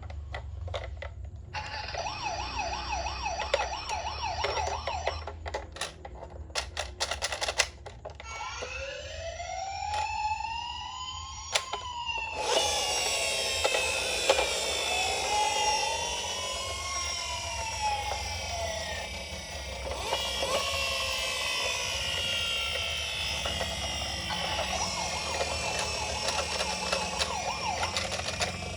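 Toy ambulance minicar's electronic siren sounding: a fast warble at first, then slow rising-and-falling wails, and from about twelve seconds in several siren tones overlapping. A few sharp clicks come about six to eight seconds in.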